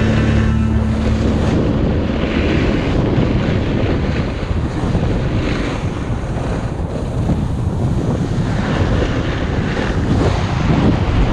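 Wind rushing over the microphone of a camera worn by a snowboarder riding downhill, mixed with the hiss of the snowboard sliding over the snow.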